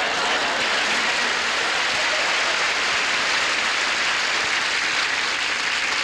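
Studio audience applauding and laughing.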